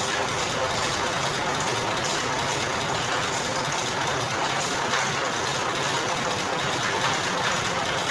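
Sugarcane crushing machine running, its electric motor and roller gearing giving a steady mechanical hum and rattle.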